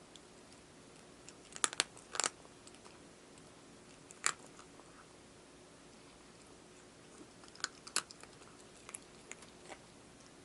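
Cat crunching dry food: scattered sharp crunches, a cluster about two seconds in, one around four seconds, another cluster near eight seconds, and lighter clicks near the end.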